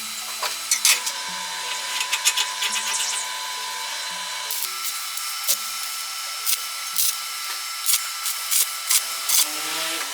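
Small electric power tool motor running with a steady whine that steps up in pitch about halfway through, with scattered clicks.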